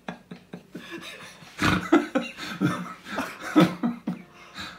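A woman laughing helplessly in short, breathy bursts with a dental flosser stuck between her teeth.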